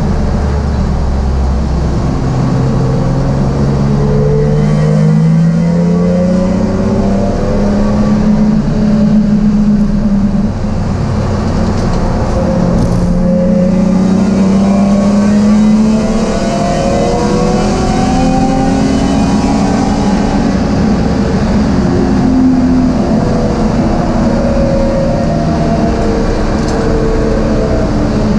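BMW M3 race car's engine heard from inside the cockpit under full racing load, the revs climbing for a few seconds at a time and dropping back with each gear change and braking.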